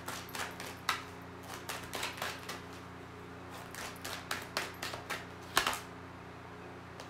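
Tarot cards being shuffled by hand: a run of irregular light clicks and slaps, with one louder snap about five and a half seconds in, over a steady low hum.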